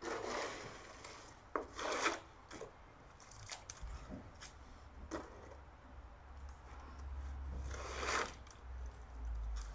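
Stable broom sweeping straw and muck over the yard floor in a series of short scraping strokes, the loudest near the start and about eight seconds in.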